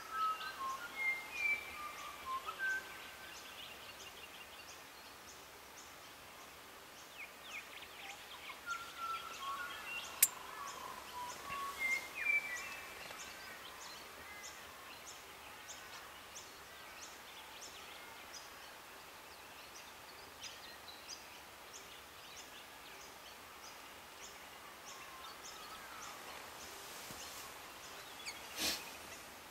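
Wild birds calling and singing, with bursts of chirps and short whistled phrases and a steady, evenly repeated high chirp underneath. A sharp click comes about ten seconds in, and a brief rush of noise near the end.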